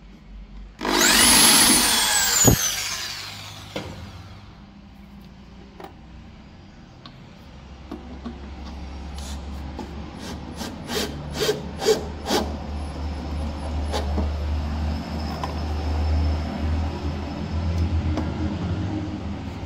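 An electric drill boring into pine board, loud for about three seconds, its motor whine falling in pitch as it winds down. Then a cordless drill/driver drives screws into the wood with a low steady hum, broken about midway by a run of sharp clicks.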